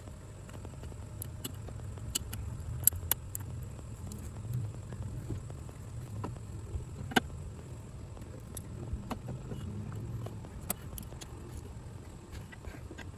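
Scattered, irregular metallic clicks and knocks of hand tools working on brake booster mounting bolts, over a steady low rumble.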